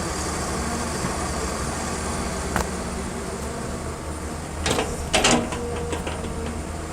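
Excavator's diesel engine running steadily, with a sharp knock about two and a half seconds in and a few metallic clanks around five seconds in.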